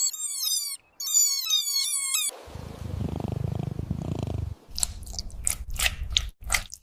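Kittens mewing in high, wavering cries for about two seconds, then a cat purring in a low steady rumble. Near the end, a string of short sharp clicks sounds over the purr.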